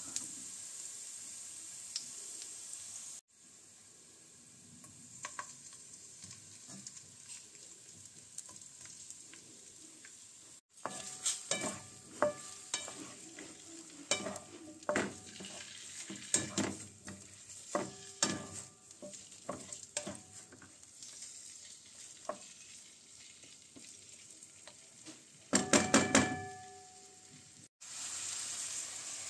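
Chopped garlic and then sausages sizzling in oil in a wok, with a wooden spatula knocking and scraping against the pan as they are stirred and turned. A louder burst of clatter comes near the end.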